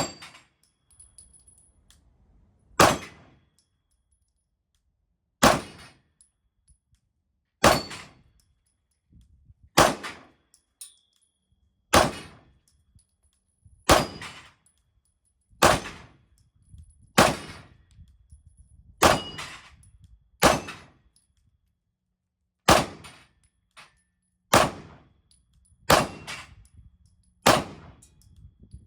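Sig P320 pistol with a compensator fired in slow single shots, about fourteen of them, one every two seconds or so. Each shot is followed by a short ring.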